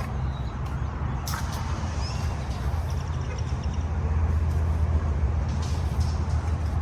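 Steady low rumble of a vehicle engine, growing a little louder about four seconds in, with a few faint high chirps.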